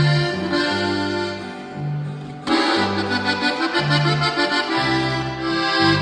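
Instrumental break in a norteño-style corrido: accordion melody over a walking electric bass line, with no singing.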